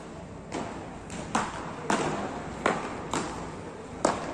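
Beach tennis paddles striking the ball in a fast volley exchange: six sharp hits, coming every half to three-quarters of a second, each echoing briefly in a large hall.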